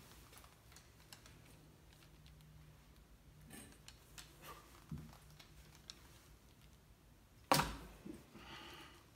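Wrench turning a compound bow's limb bolts to bring the draw weight down: scattered small clicks and knocks of tool on bow, with one sharper knock near the end.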